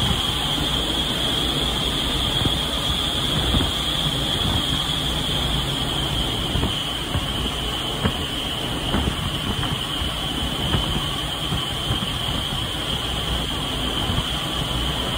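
Indoor skydiving wind tunnel running: a steady rush of air driven by its fans, with a high, even whine over a low rumble.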